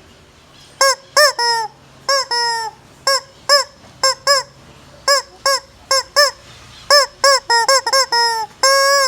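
Rubber screaming-chicken toy squeezed over and over, giving about twenty short, high honking squawks in quick, uneven succession, then a longer held squawk near the end.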